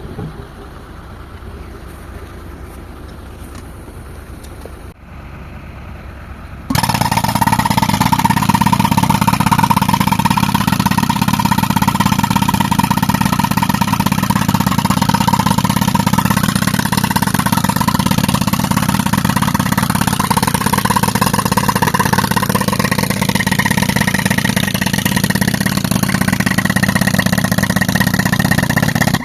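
Tractor-driven air compressor rig running steadily. About seven seconds in the sound jumps abruptly much louder, with a steady whine over heavy machine noise, and holds until it cuts off sharply.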